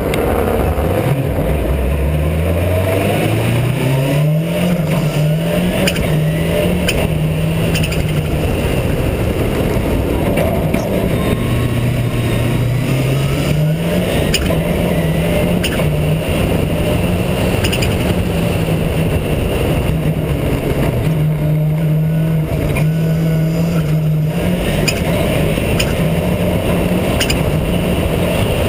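Race car engine accelerating hard. Its pitch climbs through several quick upshifts in the first five seconds, then it holds high revs, eases off around the middle and pulls up again. Steady wind and wet-tyre spray noise runs underneath.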